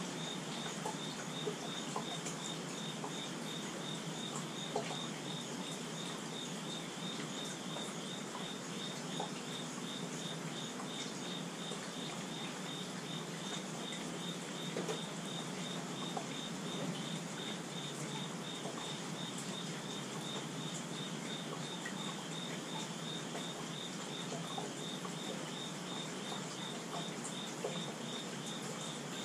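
Steady rainfall, an even hiss with scattered ticks of single drops. Over it, a high chirp repeats at an even pace without stopping.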